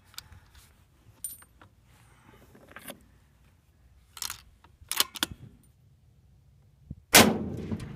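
Remington 700 bolt-action rifle being worked: a few short metallic clicks and clacks as the bolt is cycled and the rifle readied. About seven seconds in comes a single .308 rifle shot, by far the loudest sound, with a long trailing echo.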